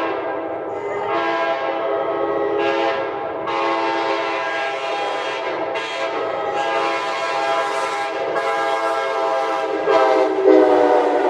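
Nathan Airchime K5LA five-chime locomotive air horn blown in one long continuous blast, its five-note chord swelling in the upper notes several times. About ten seconds in, the chord gets briefly louder and its notes sag slightly in pitch.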